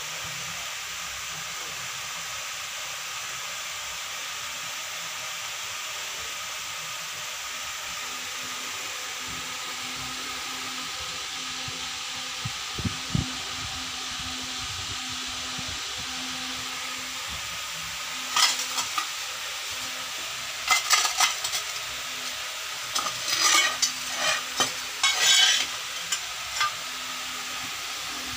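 Steady hiss with a faint hum, then irregular clusters of sharp clicks and light rattling through the second half.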